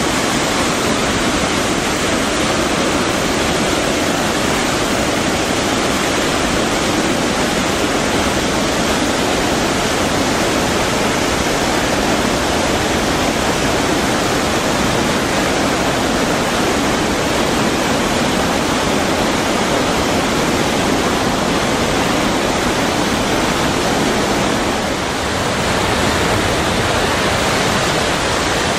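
A large river waterfall and the whitewater rapids below it, rushing loudly and steadily. It dips slightly for a moment near the end.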